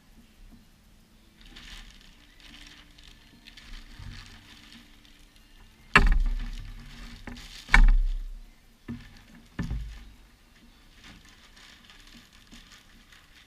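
Packaging and the bag being handled during an unboxing: soft rustling for the first few seconds, then two loud knocks about six and eight seconds in, followed by two lighter knocks.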